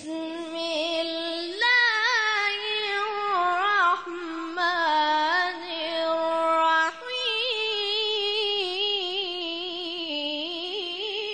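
A teenager's high voice reciting the Quran in melodic tajweed style, holding long ornamented notes that waver and turn in pitch, with brief breaks between phrases.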